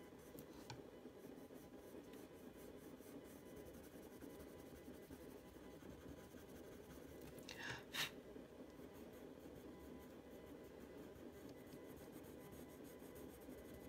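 Faint scratching of a Prismacolor coloured pencil (Dioxazine Purple Hue) shading on paper in small strokes. A little past halfway there is one short, louder scrape ending in a sharp click.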